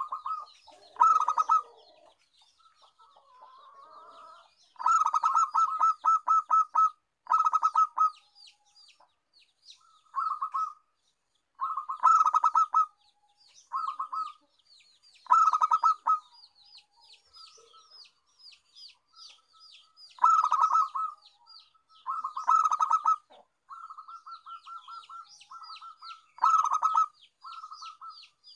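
Zebra dove (perkutut) cooing: a dozen or so phrases of fast, staccato coos with short pauses between them. A rapid, softer high chirping runs behind the coos.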